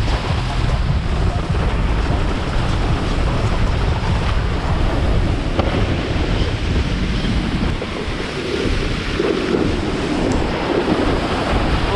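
Wind buffeting the microphone over the rush of water and the running engine of a wakeboard boat under way.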